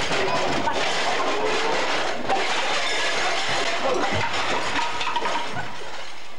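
A noisy scuffle: voices shouting over one another amid clattering and rustling, on rough, hissy old tape sound. It gives way to a steady hiss near the end.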